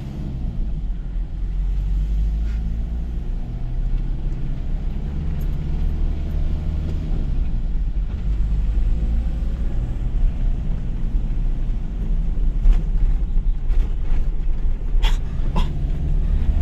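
Toyota HiLux ute driving over a rough dirt track, heard from inside the cab: a steady low rumble of engine and tyres, with the engine note rising and falling gently. A few sharp knocks in the last few seconds as the vehicle bounces.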